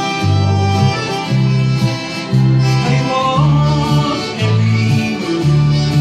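Small acoustic country band playing an instrumental passage: acoustic guitars strumming, accordion holding the melody, and alternating low bass notes about once a second. One melody note bends upward a little past halfway.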